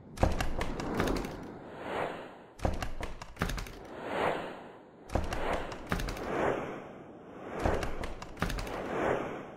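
Sound-design effects: whooshes that swell and fade about once a second, with sharp hits and thuds every second or two.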